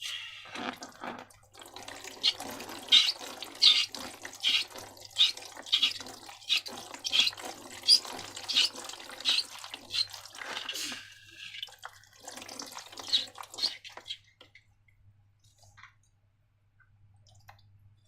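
Wet, sticky slime squelching and smacking in a steady run of sharp wet clicks, about one every two thirds of a second, that die away about three quarters of the way through.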